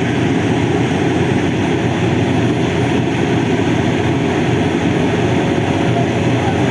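Heavy diesel engine of earthmoving equipment running steadily under load, a dense, even low rumble.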